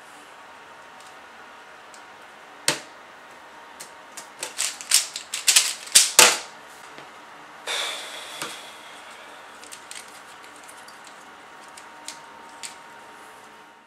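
Rubik's cube being twisted fast: a sharp click about three seconds in, then a quick run of clicking, clacking turns lasting about two and a half seconds, followed by a brief clatter and a few light clicks.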